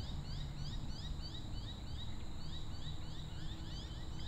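A steady, regular run of short rising chirps from a calling animal, about three a second, over a low rumble.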